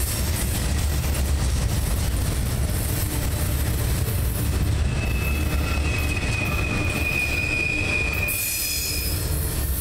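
Freight train of container-laden flatcars rolling past, its steel wheels rumbling steadily on the rails. About halfway in, a thin, steady high wheel squeal rises over the rumble. Near the end the last car goes by and the rumble drops away.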